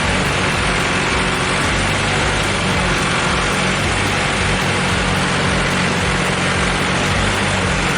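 Engine of a heavy machine running steadily at an even pitch, with a broad mechanical noise over it.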